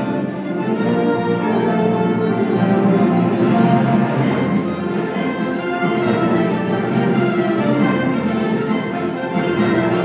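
Symphonic band of wind and brass instruments playing, with held chords that sound on without a break.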